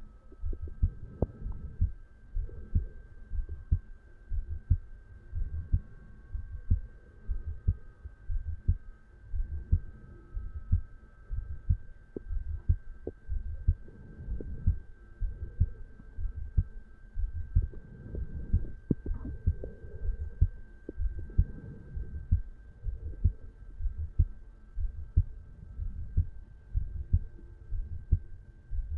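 A resting adult man's heartbeat recorded over the mitral valve area: a steady, regular rhythm of low thuds, with a faint steady high hum behind it.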